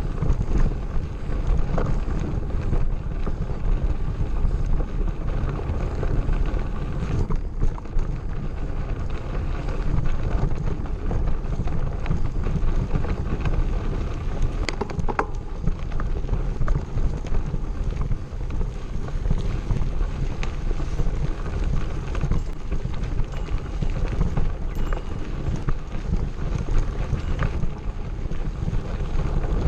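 Wind buffeting the microphone over the steady rumble and rattle of a mountain bike riding on a gravel road.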